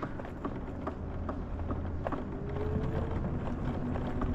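Steady low rumble of a vehicle in motion, heard from inside the cab, with scattered light clicks and rattles.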